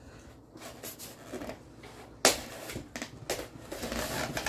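A blade cutting packing tape along the seams of a styrofoam shipping case: scratchy scraping and squeaking of tape and foam, with one sharp knock about two seconds in followed by denser rasping.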